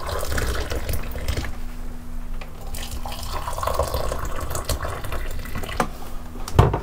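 Just-boiled water pouring from a kettle into mugs holding tea bags, a steady splashing pour that moves from mug to mug. A couple of knocks come near the end.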